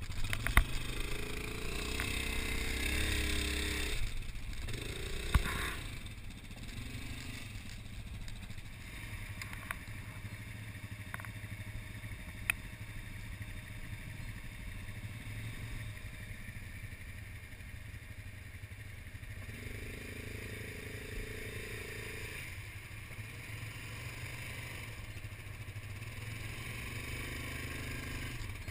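Off-road quad or UTV engine running with a steady low drone. The engine note rises and strengthens for the first few seconds and again about twenty seconds in, with a few sharp knocks or clicks.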